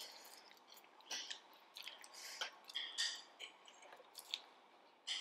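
Chewing and slurping of spicy instant noodles: irregular short, wet mouth sounds a fraction of a second to a second apart.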